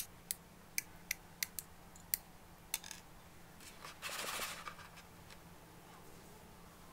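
Small hobby side cutters snipping plastic model-kit parts off the runner: about seven sharp, separate clicks over the first three seconds. A brief rattle follows about four seconds in.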